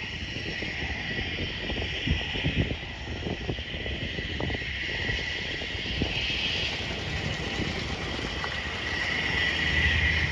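A light aircraft's engine heard from a distance as it moves away, with wind gusting on the microphone. A steady high-pitched whine sits over it.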